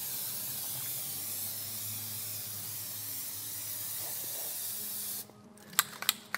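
Aerosol can of Fluid Film rust-proofing spray hissing in one continuous, steady burst for about five seconds, then cut off abruptly. A few light clicks follow near the end.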